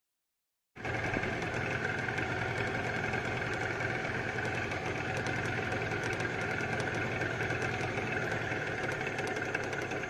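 Boat outboard motor running steadily. After a moment of dead silence, it comes in abruptly just under a second in.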